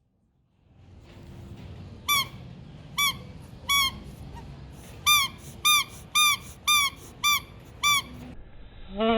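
A series of about nine short, high squeaks, each rising and falling in pitch, coming at irregular intervals, followed by a louder, rougher burst near the end.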